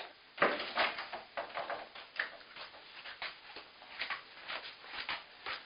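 Footsteps approaching on a hard basement floor: irregular light knocks and scuffs, about two or three a second.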